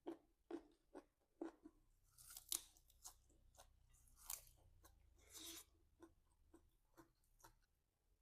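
Chewing and crunching on raw vegetables close to the microphone: crunches about twice a second, with several louder, crisp crunches in the middle as fresh crisp produce is bitten and broken up.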